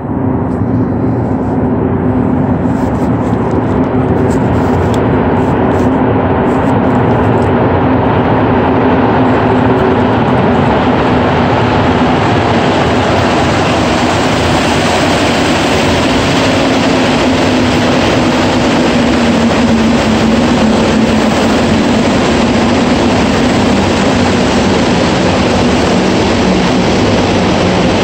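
Montreal metro AZUR rubber-tyred train coming out of the tunnel and running into the station, a loud steady rumble throughout. Its low hum sinks slowly in pitch in the second half as the train slows to stop.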